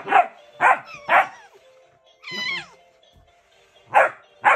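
Canine barking: three short, sharp barks about half a second apart, then one high whining yelp that falls in pitch about two seconds in, and two more barks near the end. Faint background music underneath.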